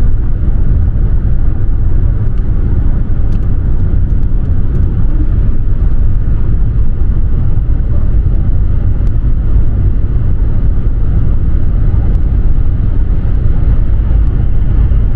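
A car driving along the road: a steady, loud, low rumble of road and engine noise.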